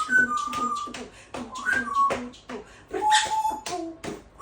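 African grey parrot vocalising: several short whistles with clicks and voice-like chatter between them.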